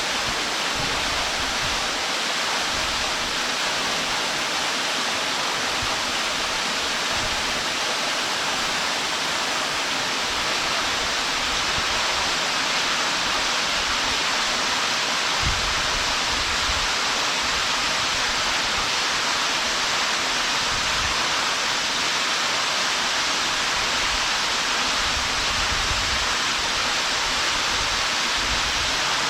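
Waterfall falling: a steady, even rushing of water with no change in level, and a few brief low rumbles now and then.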